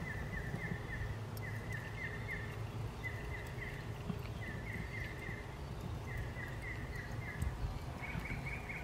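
Outdoor background with a steady low rumble and a high chirping call repeated in short groups of quick notes, about one group a second.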